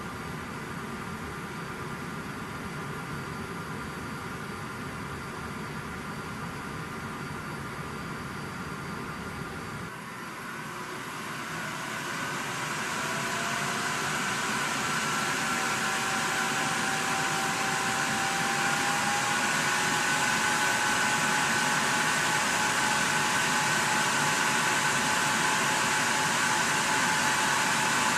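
Cooling fans of rack-mounted storage and server equipment running with a steady whirring hum. About ten seconds in, the noise briefly dips, then grows louder over a few seconds with a rising whine as the fans spin up, and holds steady at the higher level.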